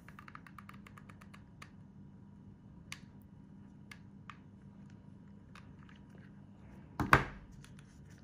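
A mini hot glue gun being worked, with a quick run of light clicks and then scattered single clicks. About seven seconds in comes a loud knock.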